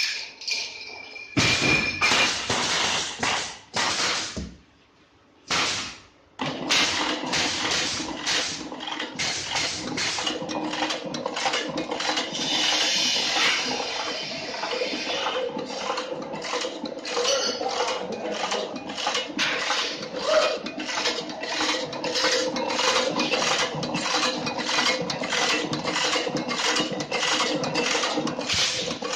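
Electric single-punch tablet press starting up about six seconds in and running steadily: a motor hum with an even, rhythmic clacking of the punch strokes, about two a second. Before it starts there are a few seconds of loud clatter and a short pause.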